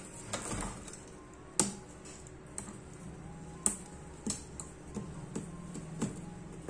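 Hand tool working at the frame of a dismantled computer monitor's screen panel: a short scrape about half a second in, then a string of sharp, irregular clicks and taps.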